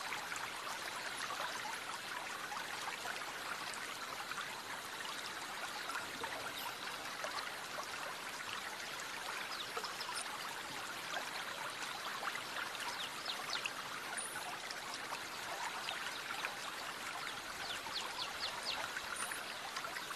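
Aquarium water bubbling and trickling steadily, with many tiny pops of small bubbles.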